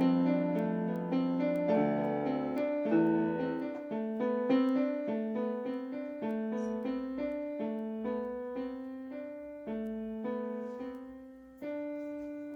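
Piano-sounding keyboard playing the end of a song: a steady run of struck notes over lower chords, thinning out, then one last note near the end that rings and fades.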